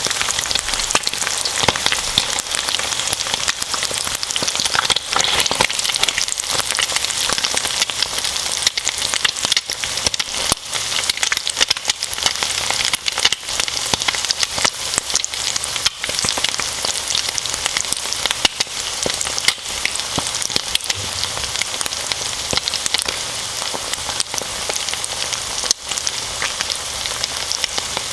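Bacon and eggs frying in a pan: a dense, steady sizzle with many small crackling pops, like rain on a surface.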